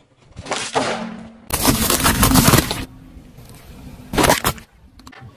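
A car tyre rolling onto a foil balloon, with a rustle and then a loud crackling burst lasting about a second as the balloon is crushed and split. About four seconds in, a short loud crunch as the tyre crushes a four-pack of plastic dessert cups.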